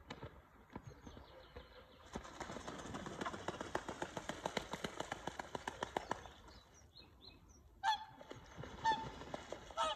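Swans splashing across the water with a fast, even run of slaps from wings and feet hitting the surface, from about two seconds in to about six. Three short, loud honking calls follow near the end.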